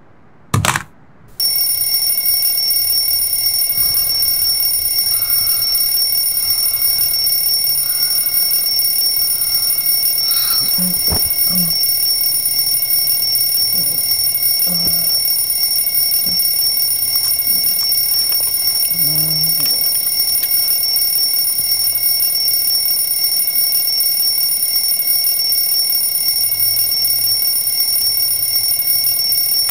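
Alarm clock ringing: a steady, loud, high-pitched alarm that starts about a second and a half in, just after a brief burst, and holds unbroken until it cuts off abruptly at the very end.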